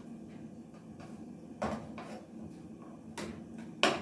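Metal utensils scraping and knocking against a frying pan: a few separate clinks, the loudest near the end, over a low steady hum.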